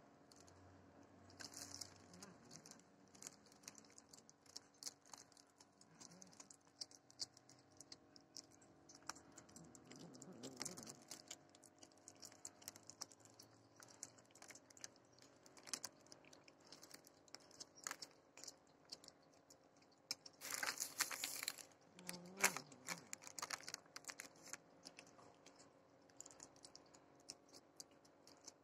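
Tabby cat chewing and tearing raw meat close to the microphone: a run of quick, irregular wet clicks and smacks of its teeth. A louder burst of noise about two-thirds of the way through.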